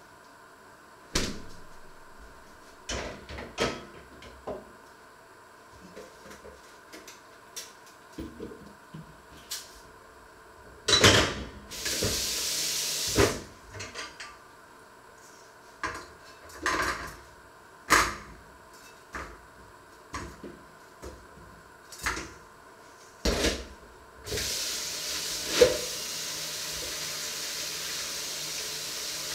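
Kitchen handling noises: a string of knocks, clinks and clatters of cookware and cupboard doors. There is a short hiss about halfway through, and a steady hiss starts shortly before the end and keeps going.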